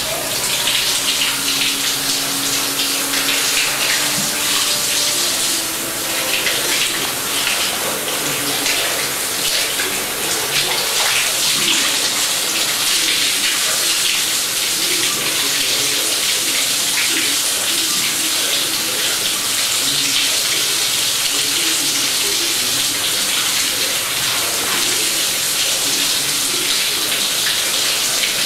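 Water running from a wall tap and falling into a plastic bucket full of water: a steady splashing hiss.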